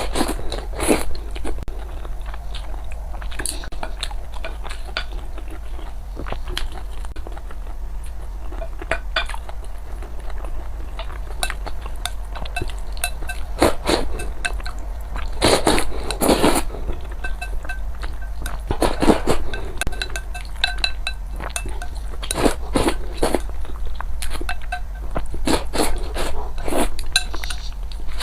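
Close-miked eating: chewing and crunching food in irregular mouthfuls, with occasional clinks of utensils against dishes.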